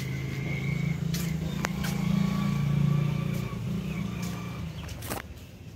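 A motor vehicle engine going by close at hand, its low hum swelling to its loudest about halfway through and then fading. A few sharp clicks.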